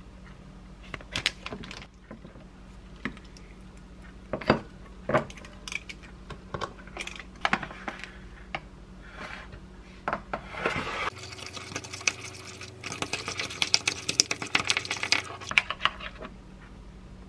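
Scattered rustles and light knocks of food packets and a bowl being handled, then a spoon stirring matcha powder into Greek yogurt in a white ceramic bowl, a rapid run of scraping and clinking against the bowl for about four seconds in the second half.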